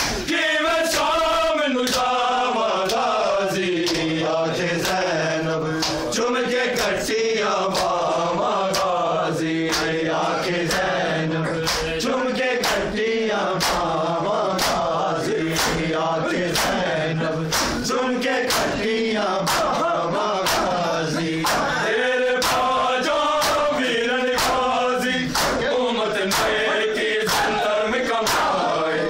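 Men chanting a noha together in unison, kept in time by the sharp slaps of bare hands striking bare chests in matam. The slaps fall at a steady beat of about one to two a second.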